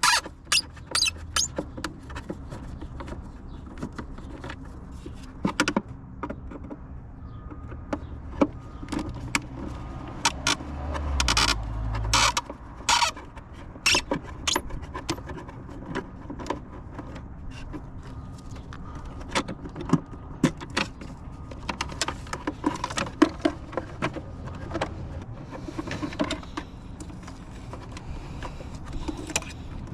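Irregular clicks, taps and light rattles of tools and small parts being handled during hands-on work on a car, over a low steady rumble.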